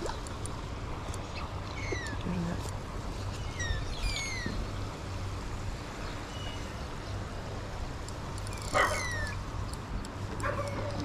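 A dog whining in short, high cries that fall in pitch, repeated every second or two, with a louder yelp about nine seconds in and another near the end.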